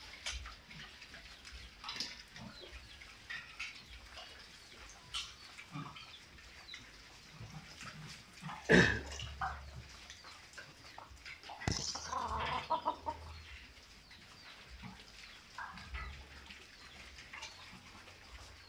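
Pigs feeding on kangkong leaves on a concrete floor: scattered chewing, snuffling and rustling of the greens. A loud sudden sound comes about nine seconds in, and a short run of rapid animal calls follows about twelve seconds in.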